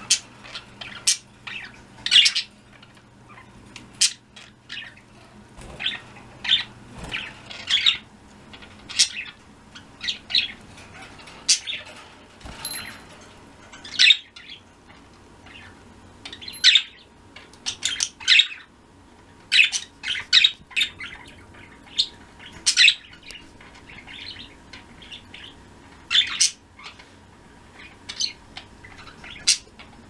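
A small flock of pet budgerigars chirping and trilling: many short, sharp, high calls from several birds, scattered irregularly and now and then coming in quick clusters.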